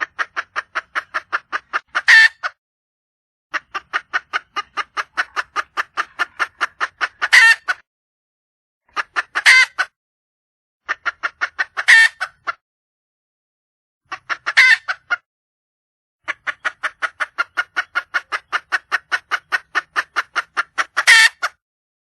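A wild junglefowl hen calling to attract a male. She gives runs of rapid clucks, about five a second, and each run ends in a louder, drawn-out squawk-like note. About six such runs follow one another, with short pauses between them.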